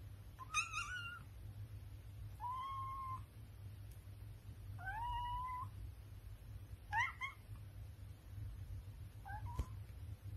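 British Shorthair cat meowing five times, short calls about two seconds apart, several rising in pitch. A single sharp click comes near the end.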